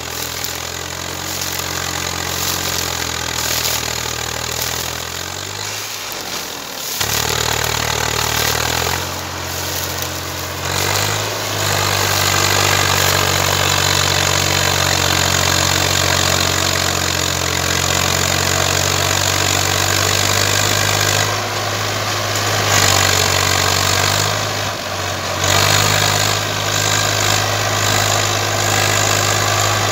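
Tractor diesel engine labouring under the load of a fully laden sugarcane trailer, strained hard enough that the front wheels lift off the ground. The engine note drops and picks up again several times, about 6, 10, 21 and 25 seconds in.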